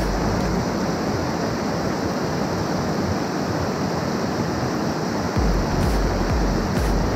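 Steady rush of white water from a rain-swollen stream pouring over a low weir. Low, irregular rumbling gusts of wind on the microphone come in about five seconds in.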